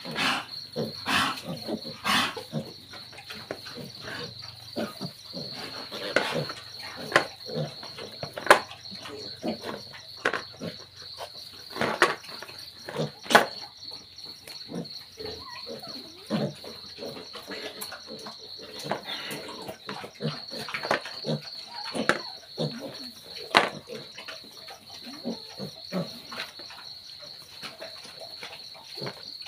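Piglets eating from a shallow dish: irregular wet chomping, snuffling and knocks against the dish, over a steady high chirring of crickets.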